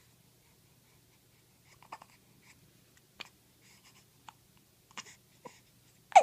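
Newborn baby with hiccups: a few faint small clicks and breaths, then one sharp, loud hiccup with a short squeak right at the end.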